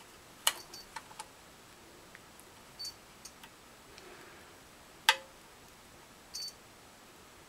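Multimeter test probes clicking against the pins of a 4L60E park/neutral switch connector, sharpest about five seconds in, with two short high beeps from the meter's continuity tester, near three seconds and again at six and a half, the sign of continuity between pins A and C in park.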